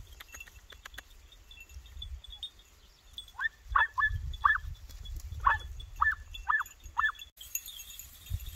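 Podenco puppy yelping while hunting: about eight short, high yelps in a quick run, each falling in pitch, the cry a hound gives on a rabbit's scent.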